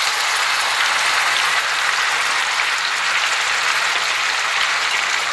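Garlic-ginger paste frying in hot ghee in an iron kadhai, with a steady, dense sizzle as the wet paste hits the fat.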